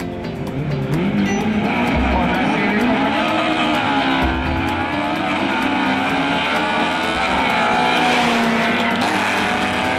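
A Honda Civic and a Chevrolet Camaro drag car launching off the line together and accelerating hard down the strip, their engines revving up in repeated rising sweeps through the gears.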